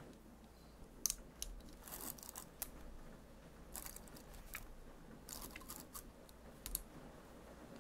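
Crisp paper-craft handling sounds: irregular crackling scratches and sharp ticks as a glue tape runner is pressed and drawn along a paper journal page, over a faint steady hiss of rain.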